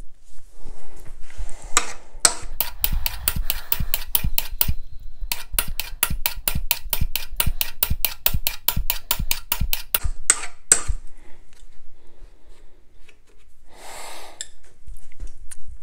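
Hardened steel burnisher stroked rapidly back and forth along the square edge of a steel card scraper held in a wooden block, a sharp metallic scrape-click at each pass, about five a second, with a brief pause partway and a last few strokes before it stops. The light strokes at 90 degrees mushroom the scraper's edge in preparation for turning a burr.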